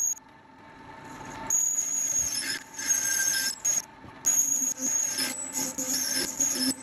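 Lathe form tool cutting a V-groove into a spinning pulley blank, with a high squealing chatter that comes in about a second and a half in and breaks off and restarts several times, over the lathe's running hum.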